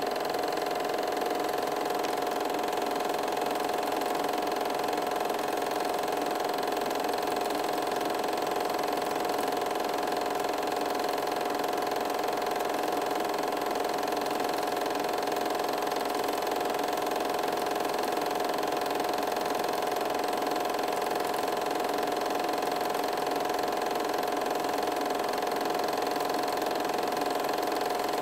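8mm film projector running: a steady mechanical whir with a constant hum that does not change.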